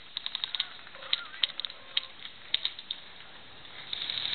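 Airsoft guns firing: a scatter of sharp clicks at uneven spacing, several in quick succession at the start, then single shots. A rush of noise builds near the end.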